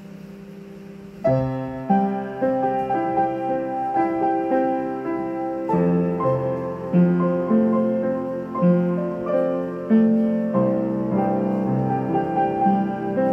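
Background music: a slow, gentle piano melody with chords, coming in about a second in over a softer sustained tone.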